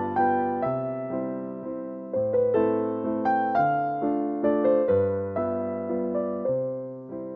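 Background piano music: a slow, gentle melody of single notes and chords, each note struck and left to fade, about two a second.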